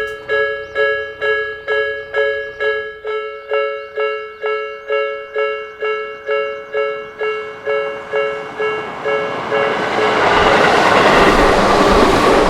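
Japanese level-crossing warning bell ringing steadily, about two and a half strikes a second. From about eight seconds in, the rush of a Tobu Isezaki Line train passing the crossing swells and becomes the loudest sound near the end, with the bell still ringing beneath it.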